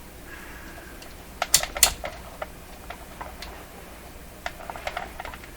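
Sharp clicks and taps from tools and parts being handled at a workbench. A cluster of loud clicks comes about one and a half to two seconds in and a few lighter ones near the end, over a steady low hum.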